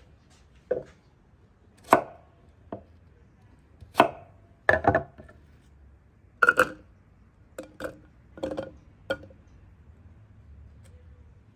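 Knife chopping on a cutting board: about a dozen sharp, unevenly spaced strokes, some in quick pairs, stopping a little after the middle.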